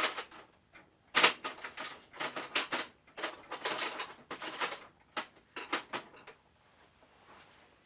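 Hand tools clicking and clattering in several bursts as someone rummages for a Phillips screwdriver.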